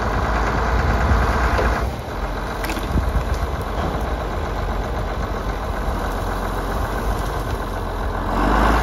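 John Deere loader tractor's engine running steadily with a deep rumble as the tractor handles a large log with its front-end loader. The engine is louder at first, eases off about two seconds in, and rises again near the end.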